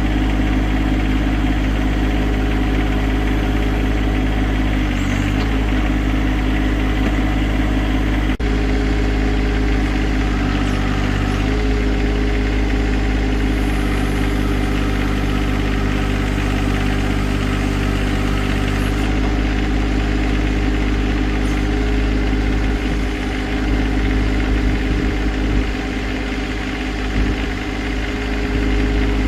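John Deere 2025R compact tractor's three-cylinder diesel engine running steadily at idle, its pitch shifting slightly a few times.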